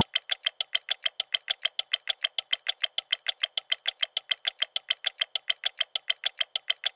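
Rapid, perfectly even ticking, about six ticks a second, like a clock-tick sound effect. It cuts off suddenly near the end.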